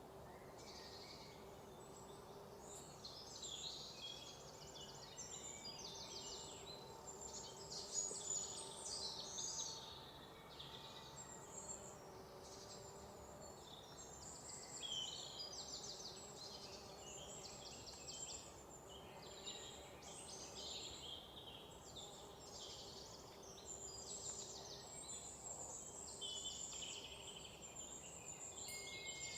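Many birds chirping and trilling in high, overlapping calls, over a faint steady hum.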